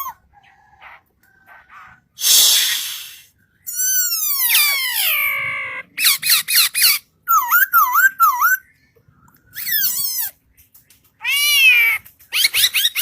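A bird giving a string of varied, high-pitched calls with short pauses between them: a hissing burst, a long falling squeal, three quick swooping whistles, and a rapid run of short notes near the end.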